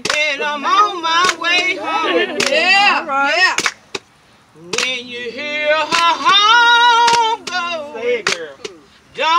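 A woman singing a slow gospel song, holding long notes, with sharp hand claps roughly once a second. The singing breaks off briefly about four seconds in.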